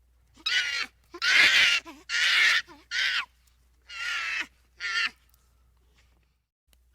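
An animal calling over and over: six harsh calls in a row, each about half a second long, then silence near the end.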